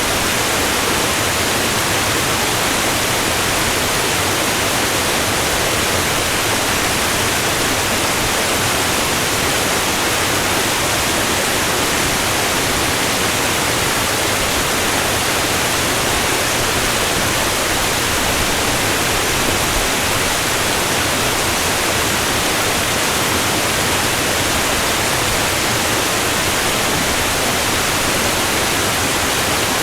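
Niagara Falls: a steady, unchanging rush of falling water, an even noise across all pitches with no breaks.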